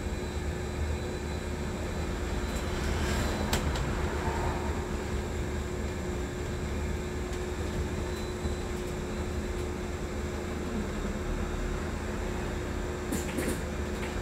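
Ride noise on the upper deck of a Wright Electroliner battery-electric double-decker bus under way: a low road rumble with a steady hum, and a few light rattles about three seconds in and again near the end.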